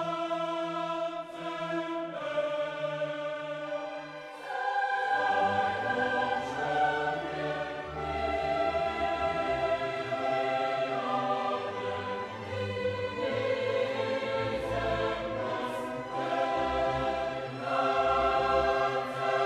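Background music: a choir singing long held chords over an orchestral backing, with deeper bass notes coming in about four seconds in.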